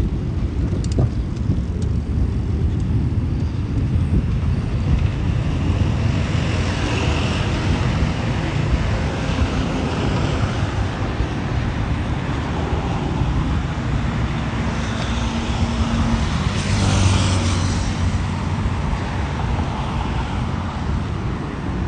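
Road traffic: cars passing over a steady low rumble, with a hiss that swells about seven seconds in and again, loudest, about seventeen seconds in as a vehicle goes by.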